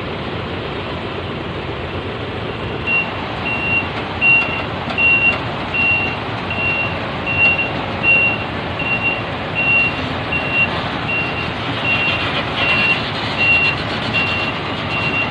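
A large cargo truck's reversing alarm beeping evenly, a little over once a second, starting about three seconds in, over the steady noise of the truck's engine as it backs up.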